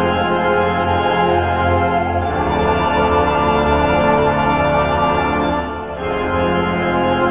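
Background music of held chords that change about two seconds in and again near six seconds.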